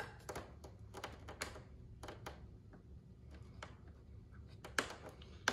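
Faint scattered clicks and small plastic taps as a clevis is worked onto the outer hole of an RC jet's elevator control horn, with two sharper clicks near the end.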